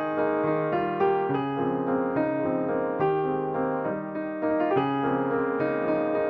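Background music: a piano or electric piano playing a gentle melody over chords.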